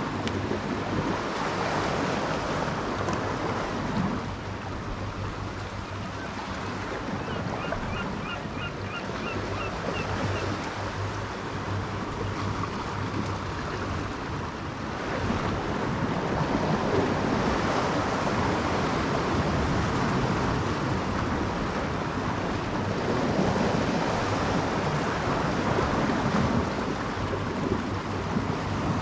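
Sea waves washing against the rocks, with wind on the microphone; the wash grows louder about halfway through. A short run of faint high chirps comes about a quarter of the way in.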